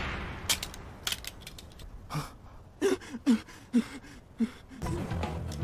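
Footsteps: a steady series of short scuffing clicks with little creaks, about two a second, over a quiet background. A low rumble comes in near the end.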